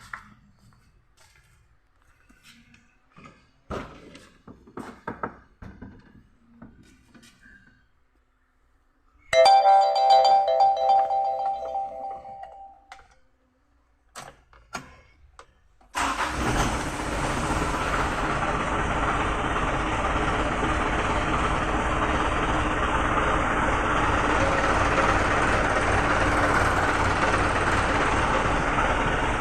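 Mitsubishi Canter common-rail diesel truck engine starting suddenly about halfway through and then idling steadily, the no-start fault cured. Before it, scattered clicks and knocks and a ringing tone that fades away over a few seconds.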